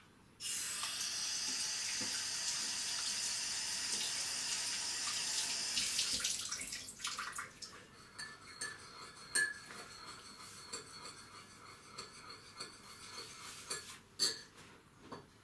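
Water running steadily for about six seconds, then stopping, followed by scattered light clinks and knocks.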